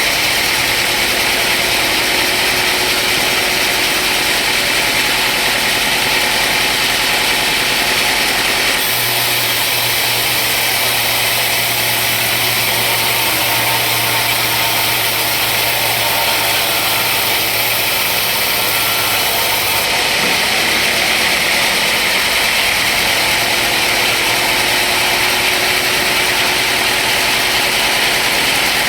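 Sawmill machinery running steadily. About nine seconds in, a deeper hum and a brighter hiss join for about eleven seconds, then drop away.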